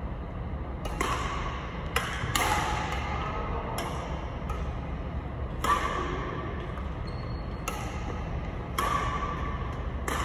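Badminton rackets hitting a shuttlecock in a rally: a sharp ping every one to two seconds, each ringing out in the echo of a large sports hall.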